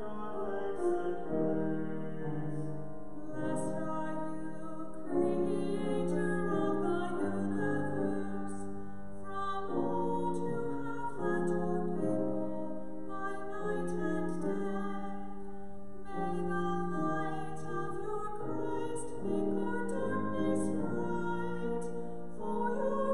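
A woman singing solo with grand piano accompaniment, her voice carrying long held notes over the piano's chords.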